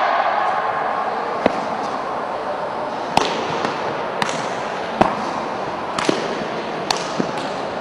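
About nine sharp slaps at irregular spacing from a kung fu form: the palm striking the foot on kicks and hand strikes, over the steady hubbub of a large hall.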